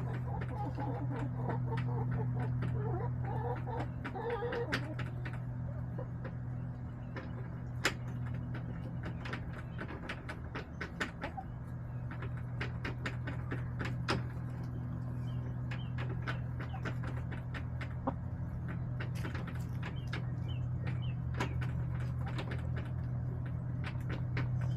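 Backyard hens clucking softly for the first few seconds, then mostly quiet apart from many scattered sharp clicks and taps, typical of chickens pecking and scratching in a plastic coop. Small high chirps come in later, over a steady low hum.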